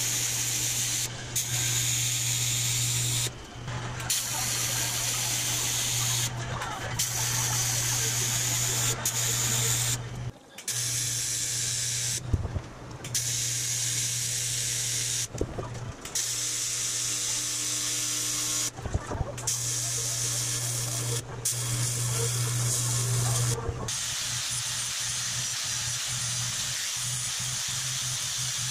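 AC TIG welding arc on aluminum sheet: a steady buzzing hiss over a low hum, cut off briefly about eight times as the arc is stopped and restarted.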